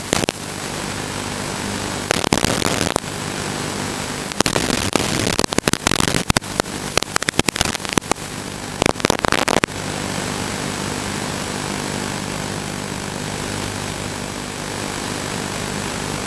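Steady hiss and buzz from the audio channel of an analog FPV video link. From about two to ten seconds in, it breaks into bursts of crackling static as the radio signal drops out.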